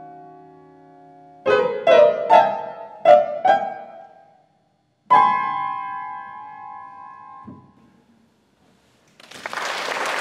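Grand piano ending a piece: a held chord dies away, then five short struck chords, a pause, and a final chord that rings for a couple of seconds before it is cut off. Audience applause starts near the end.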